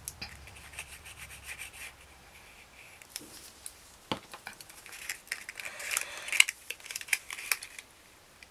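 Paper rustling and crinkling on and off as a small paper flower's petal is glued, folded and pressed by hand, busiest in the second half. A light knock about four seconds in.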